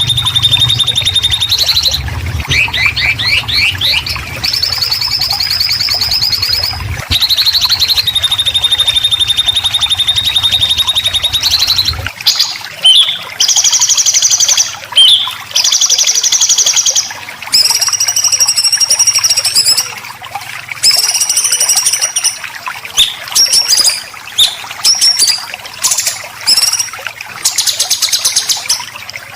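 Songbird besetan: harsh, buzzing trills of very rapidly repeated high notes, each held a few seconds, as played for training caged songbirds. About twelve seconds in, a low hum underneath stops abruptly, and the trills turn into shorter bursts that follow one another quickly.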